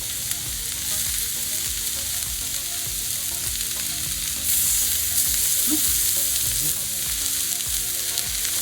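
Food sizzling on a hot Blackstone flat-top griddle running on high heat: sautéing peppers and onions and sausage frying, a steady hiss that gets louder about halfway through.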